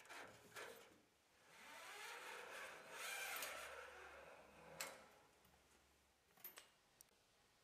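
Faint handling noises around a steel throttle cable: a few light clicks and a soft scraping swell that rises and fades over a few seconds, then a couple of sharp ticks near the end.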